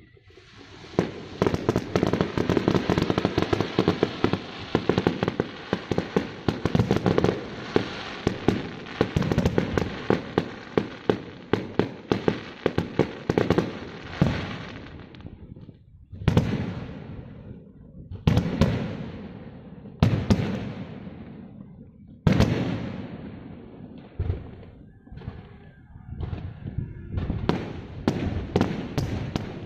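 Fireworks going off: a dense run of bangs and crackling for about fifteen seconds, then single loud bangs about every two seconds, each trailing off in crackle, and quicker pops again near the end.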